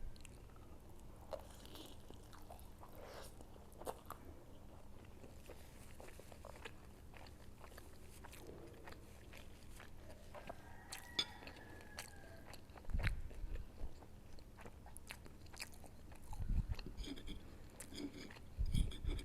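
Close-miked chewing and biting of a mouthful of food, with scattered soft mouth clicks and a few low thumps in the second half.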